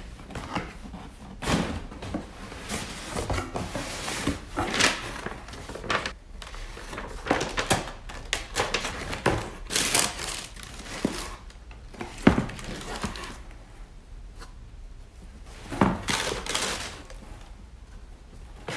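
Cardboard shipping box and shoebox being opened and handled, with irregular knocks and scrapes of the flaps and lid, and tissue paper rustling and crinkling as it is folded back from the sneakers.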